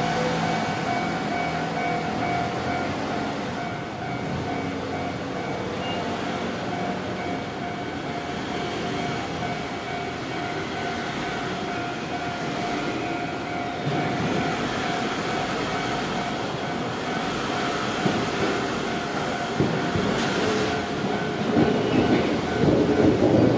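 Electric commuter train on the Shizuoka Railway's Shizuoka-Shimizu Line running on the track, with a steady high whine and rail rumble. The wheel clatter grows louder toward the end.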